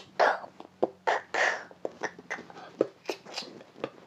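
A boy's breathy mouth noises close to the microphone: two short hissing puffs early on and a scatter of small clicks and pops, like a bit of beatboxing.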